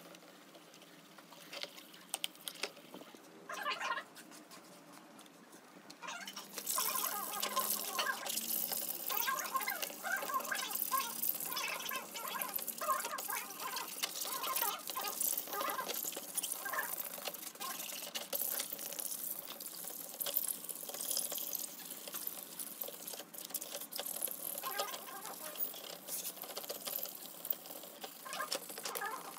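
Wet plastic laptop case being scrubbed with a toothbrush in a tub of water, with light splashes and clicks. About six seconds in, loud, continuous scratchy rubbing of sandpaper worked by hand over the black plastic case takes over.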